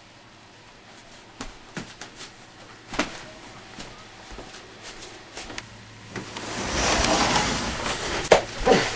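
Quiet small room with a few scattered light knocks and clicks. About six seconds in, a rustling handling noise swells for a couple of seconds as cloth brushes the recorder, and a sharp click follows near the end.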